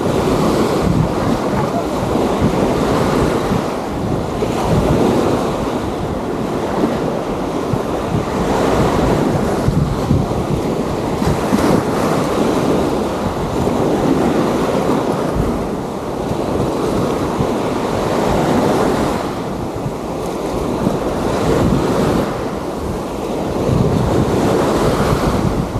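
Small waves washing onto a sandy beach, a continuous surf hiss that swells and eases every few seconds, with wind buffeting the microphone.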